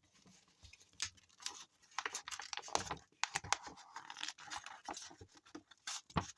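A sheet of sandpaper being handled at a workbench: irregular rustling and crinkling with many small clicks and knocks.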